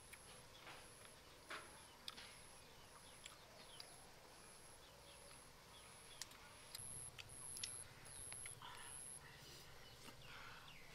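Faint rural ambience: a thin high chirp repeating a little faster than once a second, stopping about nine seconds in, with scattered small clicks.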